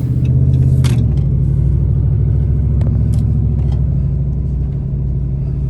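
Ram pickup truck's engine running with a low, steady rumble; its note drops about a second in.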